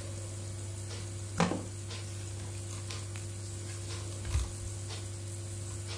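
Steady low hum with a faint click about a second and a half in and a soft low thump a little after four seconds, from multimeter test probes being handled against a circuit board.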